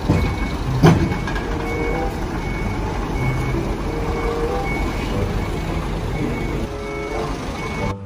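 Tipper semi-trailer dumping sand: the truck's diesel engine runs under a steady rumble while a warning beeper sounds short high beeps at a steady rate. There is one sharp knock about a second in.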